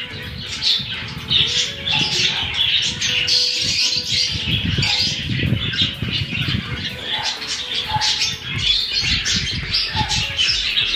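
Many caged lovebirds and parakeets chattering and squawking together in a steady stream of short, high calls, with an irregular low thudding underneath.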